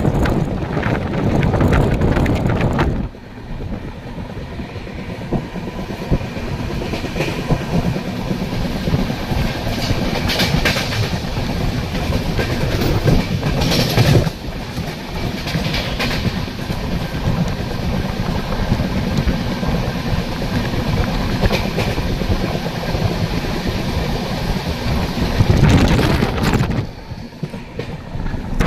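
Passenger train coaches running at speed, heard from an open doorway: the wheels clatter over the rail joints under a steady rush of wind. It is loudest for the first three seconds and again briefly near the end.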